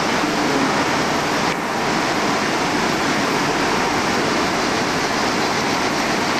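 Steady, even rushing background noise with no clear speech, holding level throughout apart from a slight dip about a second and a half in.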